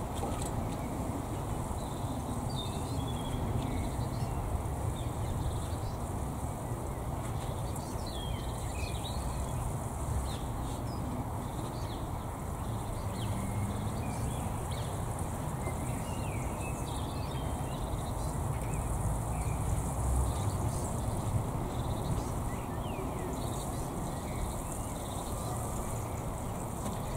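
Birds calling on and off outdoors: short high chirps and quick falling notes scattered through, over a steady low rumble of background noise.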